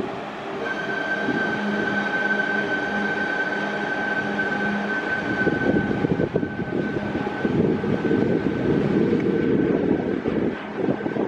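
Indian Railways train passing close by: the rumble and rattle of wheels and coaches on the track, with a steady high whine that sets in about a second in.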